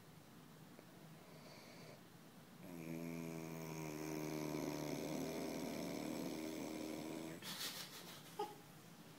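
A man snoring in his sleep: one long pitched snore of about four and a half seconds starting near three seconds in, then a short hiss and a sharp click.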